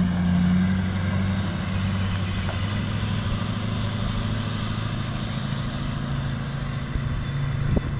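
Car-hauler truck's engine running steadily with a low drone as the transport pulls away.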